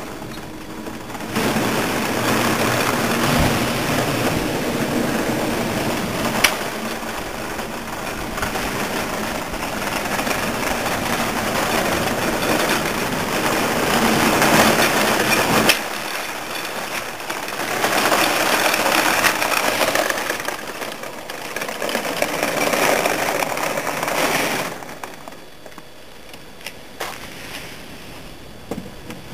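A 1/6-scale radio-controlled Marder III tank running across concrete paving: the steady whir of its drive with the rattle of its tracks, swelling and easing as it changes speed. The sound falls away to a faint background near the end as the tank moves off.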